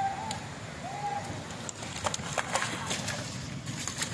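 Wet slaps and thuds of freshly caught carp being tossed onto a heap of fish in a truck bed, along with fish flapping on the pile: irregular sharp smacks throughout.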